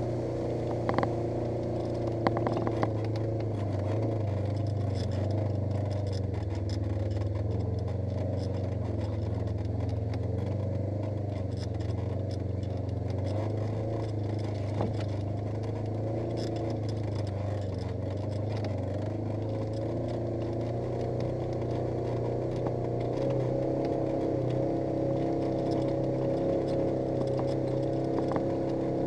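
Polaris RZR 900 S side-by-side's parallel-twin engine running steadily at low speed, with scattered clicks and rattles; the engine note rises a little about three-quarters of the way in.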